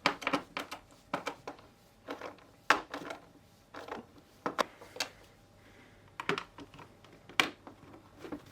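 Irregular light clicks and knocks of hard plastic parts on a Karcher K3 pressure washer being handled and fitted back together, a few per second with short gaps.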